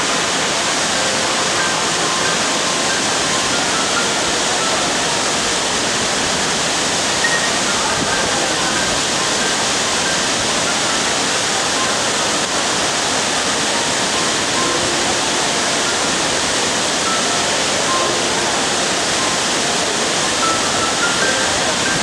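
Silver Cascade Falls, a tall waterfall in heavy flow, crashing steadily into its plunge pool: a loud, unbroken rush of falling water.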